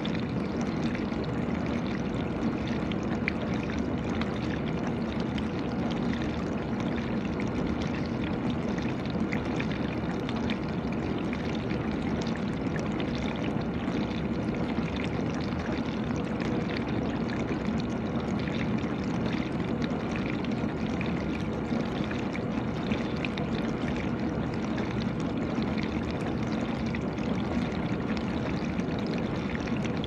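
GE dishwasher running mid-cycle: water spraying and splashing steadily inside the tub, with a faint steady hum underneath.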